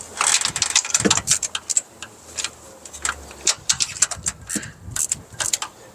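Ratchet wrench with a spark plug socket clicking in short, irregular runs as new spark plugs are snugged down until they bottom out.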